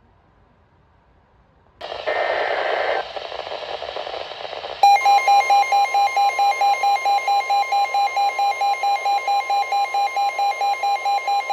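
NOAA Weather Radio alert coming over a weather radio receiver: a short burst of radio hiss and data-like tones, then the steady 1050 Hz warning tone with the receiver's own alarm beeping rapidly over it, about four or five beeps a second.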